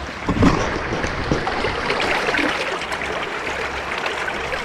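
River water lapping and trickling against the hull of an inflatable boat, with a knock from the camera being handled about half a second in.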